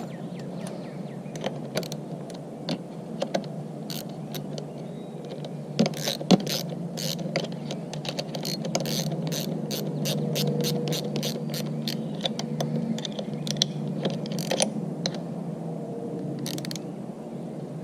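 A 10mm ratcheting wrench clicking while the clutch lever clamp bolts on a dirt bike's handlebar are tightened. There are scattered clicks and knocks, then a run of regular ratchet clicks at about three a second in the middle, over a steady low hum.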